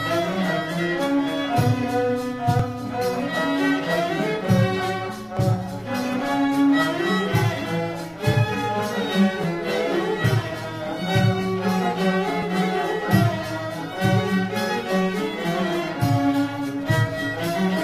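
Instrumental background music led by bowed strings, with a steady low pulse.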